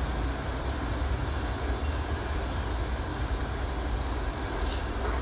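A steady low rumble with an even hiss over it, with no clear rhythm, and two faint brief hisses in the second half.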